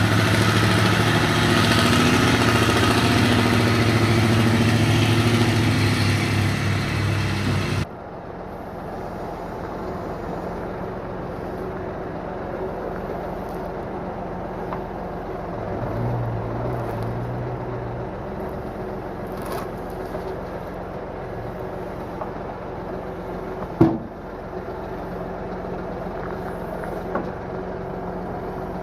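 Engine running loudly with a steady low drone. It cuts off abruptly to a quieter, steady engine hum, with one sharp knock about three quarters of the way through.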